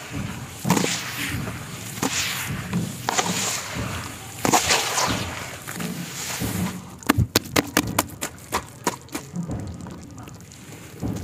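Hands squeezing and kneading wet black sand mud, squelching about once a second. About two-thirds of the way in comes a quick run of a dozen or so sharp wet clicks, then it goes quieter.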